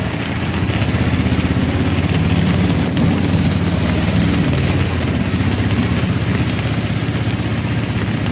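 A motor vehicle engine running steadily with a low, finely pulsing rumble, over a broad wash of noise.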